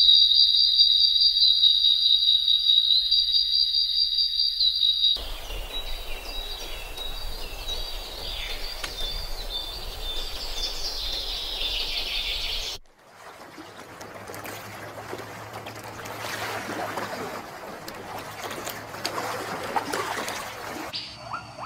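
Woodland nature ambience. For about the first five seconds there is a steady high trill, like an insect. Then birds chirp, and after a short break a fainter mix of bird calls sits over a soft background hiss.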